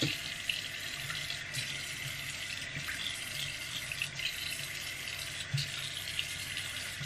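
Bathroom sink faucet running steadily into the basin, with a few small splashes as water is scooped up in the hands and rubbed over the face.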